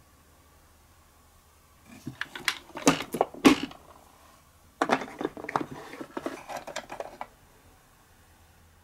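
Small hard plastic miniature toy kitchen pieces being handled and knocked together. There are two runs of sharp clicks and light knocks, the first louder, and a longer, lighter clatter about a second later as the toy fridge drawer is opened and a plastic food piece is picked out.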